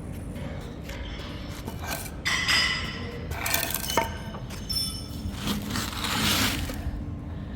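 Metal parts clinking and scraping as they are handled and rummaged through, with one sharp clink about halfway through, over a faint steady hum.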